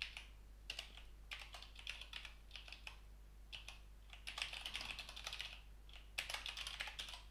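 Typing on a computer keyboard in quick runs of keystrokes, with short pauses between runs.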